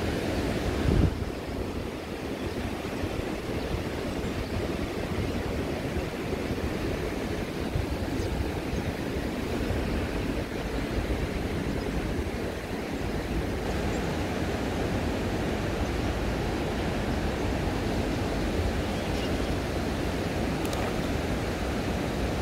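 Steady rush of a flowing river with wind buffeting the microphone, and a short thump about a second in.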